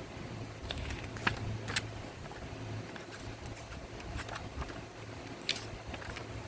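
Plastic CD case being handled: scattered light clicks and taps, the sharpest about a second in and again near the end, over a steady low hum.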